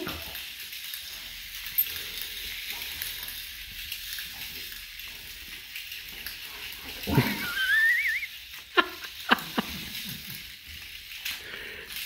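Golden retriever puppy giving a high, wavering whine about seven seconds in, then two short sharp yips or barks, over a steady faint hiss.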